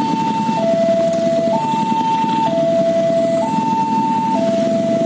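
An electronic two-tone warning signal alternating between a higher and a lower note, each held about a second, over the low running rumble of a passenger train pulling away.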